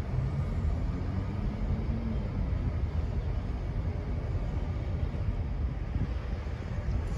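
Low, steady rumble of a Norfolk Southern GP38-2 diesel locomotive's EMD 16-cylinder two-stroke engine running, with wind buffeting the microphone.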